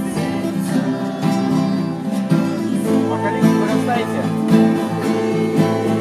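A live band playing a song in rehearsal, with a steadily strummed guitar over held notes from the other instruments.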